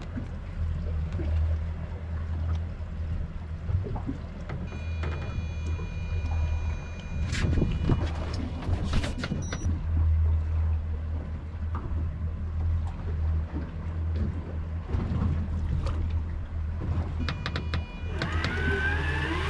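Steady low hum of the boat's twin Mercury Verado V8 outboards idling, with knocks against the hull. A high electric whine comes and goes: it runs for several seconds about a quarter of the way in, then starts again near the end, where it rises. It is the electric deep-drop reel being worked.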